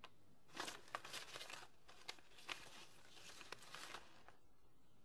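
Sheets of handwritten letter paper rustling and crinkling as they are handled, in a run of faint, short crackles that stops about four seconds in.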